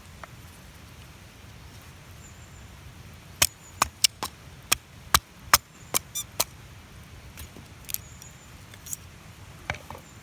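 Burning wood crackling in a campfire: a quick irregular run of sharp pops around the middle, with a few scattered ones later.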